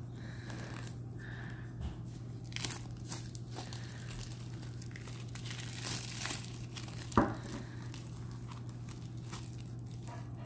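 Cellophane shrink-wrap being torn and crinkled off a tarot card deck, in irregular crackles with one sharp snap about seven seconds in.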